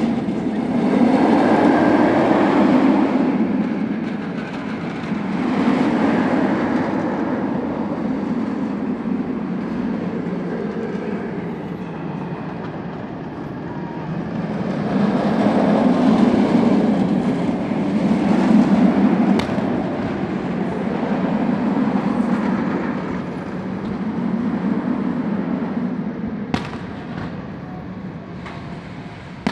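Inverted steel roller coaster train running along its track with a continuous rumble that swells and fades several times as it passes through the layout. A sharp firework bang sounds near the end.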